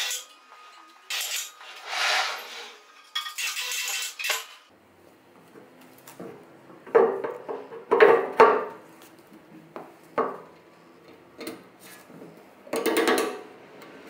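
Short bursts of scraping, then metal parts clinking and knocking as they are handled and set down, some of them ringing briefly.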